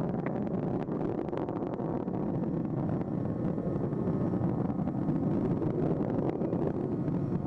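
Space Shuttle Atlantis's rocket engines in ascent: a steady roar with crackling, the main engines revving back up after throttling down through max-q.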